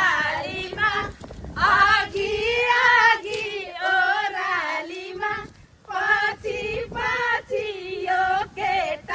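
A high voice singing a melody with long held notes, pausing briefly about five and a half seconds in.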